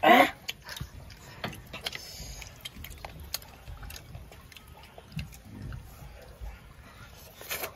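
Faint eating sounds: fried chicken being chewed and handled, with scattered small clicks, after a brief voice at the very start.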